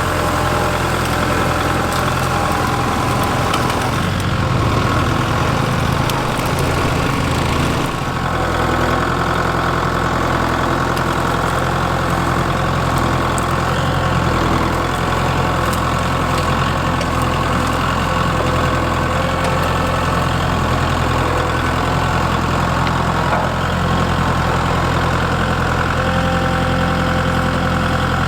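Kubota MX5200 tractor's diesel engine running steadily. Its note wavers for a few seconds about four seconds in, then settles again.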